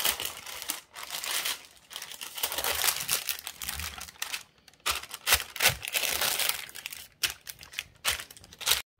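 Greaseproof paper crinkling and crumpling in irregular bursts as hands press and fold it into a dish to line it. It cuts off suddenly near the end.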